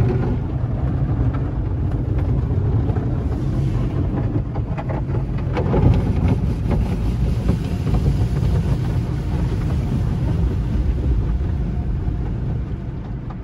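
Automatic car wash heard from inside the car: water spray and washing equipment beating on the body and windshield make a steady low rumble, with scattered knocks and slaps. It eases off slightly near the end.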